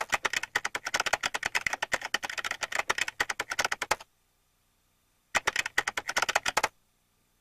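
Rapid typing on a computer keyboard, keys clicking in quick succession for about four seconds, then a pause of over a second, then a shorter burst of keystrokes.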